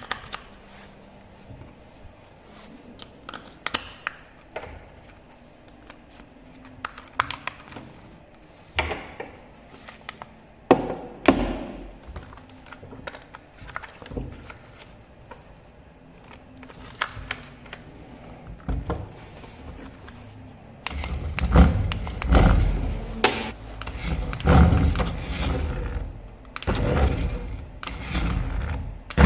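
Plastic toy RC car: scattered knocks and clicks, then, about twenty seconds in, a louder uneven rumbling with a lot of low end.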